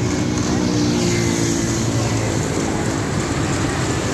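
Steady road traffic noise, with one vehicle's engine hum standing out for the first two seconds or so before fading.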